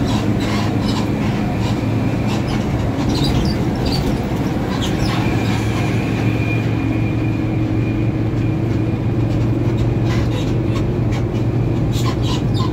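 Intercity coach bus on the move, heard from inside the cabin: a steady low engine and road drone, with scattered light rattles and clicks from the body.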